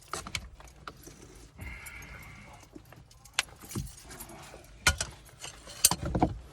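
Metal hand tools clinking and clanking against metal, a scatter of sharp clicks, with the loudest knocks past the middle and near the end.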